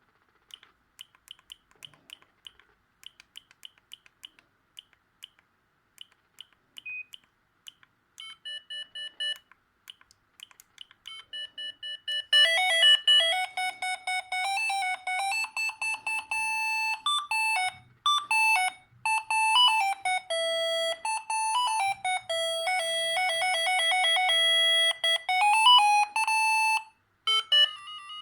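Siemens S45 mobile phone playing ringtones. A run of short, faint beeps comes first. From about 8 seconds there are longer pulsed tones, and from about 12 seconds a loud electronic melody of single beeped notes. It breaks off near the end and a new tune starts.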